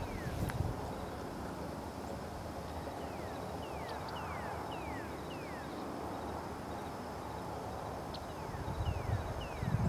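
A bird's thin whistled notes, each falling quickly in pitch, repeated again and again at roughly one-second gaps over a steady outdoor background hum. A low rumble comes in near the end.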